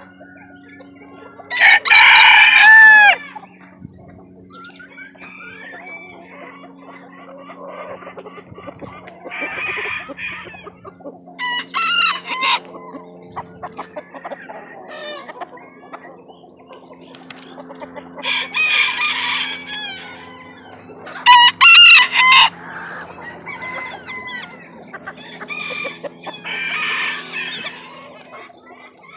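Roosters crowing again and again, about six crows with the loudest about two seconds in and about twenty-two seconds in, and chickens clucking softly between the crows. A steady low hum runs underneath.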